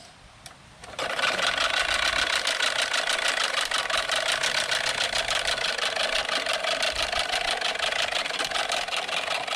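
Manual push reel lawn mower rolling across short grass, its spinning cutting reel giving a steady, rapid whirring clatter that starts about a second in.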